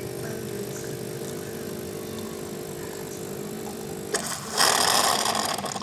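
Getra SN-3035S espresso machine's 20-bar pump humming steadily while brewing a shot, cutting off about four seconds in. It is followed by a loud hiss lasting about a second.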